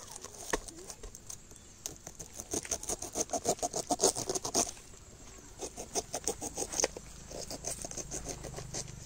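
Knife crunching through a pineapple's tough rind in quick short strokes, in two runs of rapid crisp crunches.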